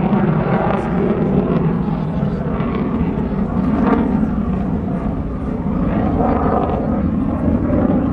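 Jet noise from an F-22 Raptor's twin turbofan engines as it flies its display overhead: a steady, loud rushing noise.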